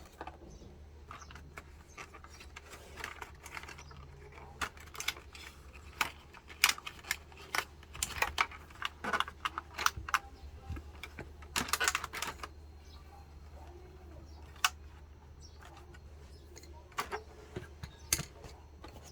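Irregular clicks and light rattles of small hard objects being handled, bunched in the first two-thirds and thinning out later, over a steady low hum.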